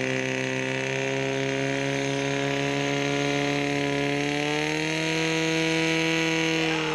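Portable fire pump's engine running hard under load, pushing water through the hoses to the targets. Its pitch climbs about four seconds in, holds high, and starts to drop right at the end.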